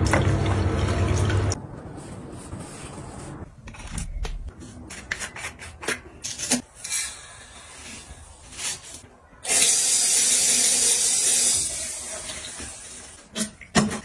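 Water from a tap running into a sink for about the first second and a half. Then comes a stretch of small clicks and knocks as things are handled at the sink. A tap runs hard again for about two seconds about two-thirds of the way in, with a few more clicks near the end.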